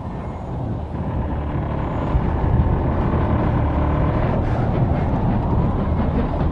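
Wind with a loud, steady low rumble as the sails of a wooden windmill turn, building up just before and then holding steady.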